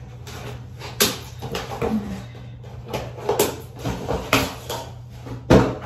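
Plastic packet of crochet hair crinkling and rustling as it is handled and opened, with irregular clicks and knocks; the loudest is a sharp knock near the end.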